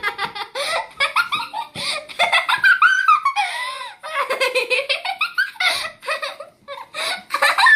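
A young girl laughing in rapid, high-pitched bursts, almost without pause.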